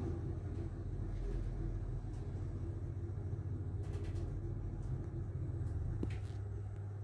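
Passenger lift running between floors: a steady low rumble and hum inside the car, with a few faint clicks.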